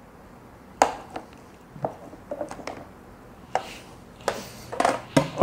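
Scattered clicks and knocks of a blender's stacked plastic blade assembly being pulled out of the pitcher and handled, with a busier run of clatter near the end.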